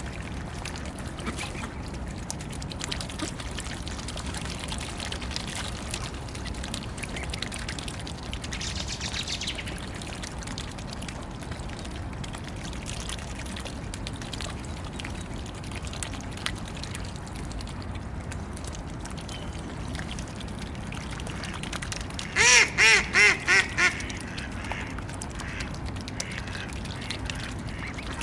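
Swans and ducks dabbling and splashing at floating pellets on a pond, with small clicks and water sounds. About three quarters of the way through, a mallard duck quacks loudly about six times in quick succession, each quack dropping in pitch.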